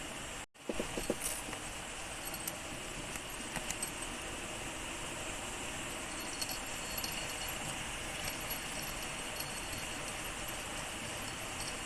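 Steady rush of flowing river water, with scattered light clicks and rattles, briefly cut off about half a second in, the rattles bunched just after the cut.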